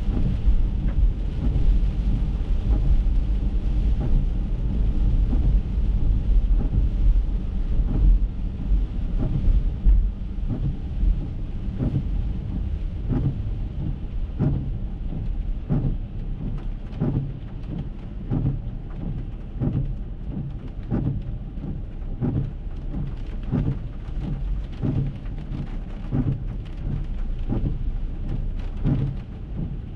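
Rain and wet-road tyre noise heard from inside an Acura MDX. The low rumble eases over the first ten seconds or so as the car slows to a stop. Then a regular tick comes about every three quarters of a second over the rain.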